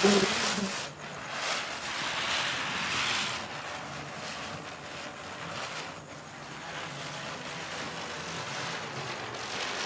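Ground spinner firecracker (chakri) spinning on the ground and spraying sparks, a continuous fizzing hiss that swells and dips a little as it burns.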